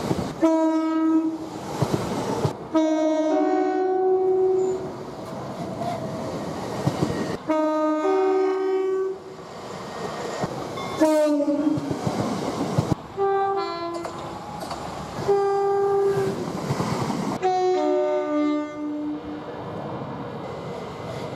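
Two-tone train horns sounded again and again, each sounding stepping between a higher and a lower note, over the rumble and clatter of trains passing at speed. The sound changes abruptly every few seconds as one horn gives way to the next.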